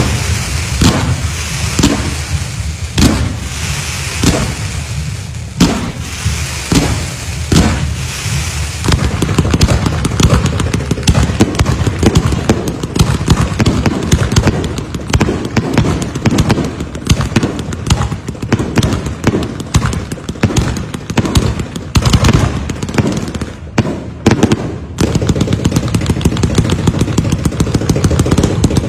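Diwali firecrackers going off: separate sharp bangs about once a second over a hissing crackle, then a dense, rapid run of cracks from about nine seconds in that carries on, with a short break near the end.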